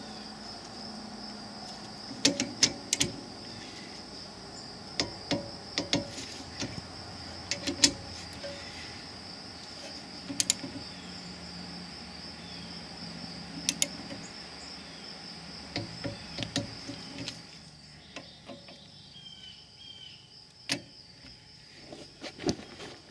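Sharp metal clicks from a torque wrench tightening the rear brake caliper bolts, coming in short groups of one to three, over a steady high chirring of crickets that stops about three-quarters of the way through.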